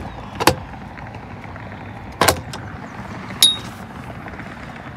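Metal pop-up deck cleats on a boat being worked by hand, three sharp clicks, the last with a brief metallic ring.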